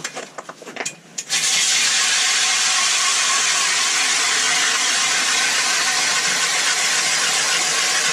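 Power ice auger drilling through lake ice. It starts abruptly about a second in and runs at a steady, loud, even level.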